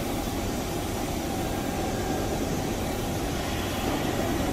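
Hanshin 5000-series 'Jet Car' electric commuter train at a station, a steady low rumble and hum with no sudden sounds.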